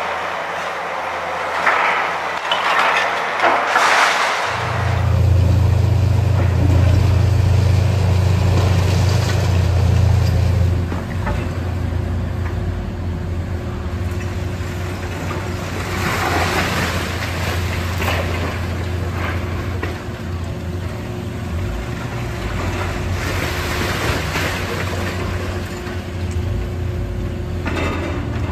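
Demolition excavator tearing into a brick building, with debris crunching and rattling. About four seconds in, the steady low drone of heavy diesel machinery takes over, with scattered crashes of falling debris.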